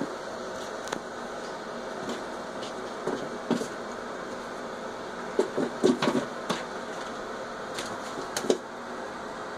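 Steady mechanical hum, like a fan, with scattered soft knocks and brief rustles, most of them about halfway through.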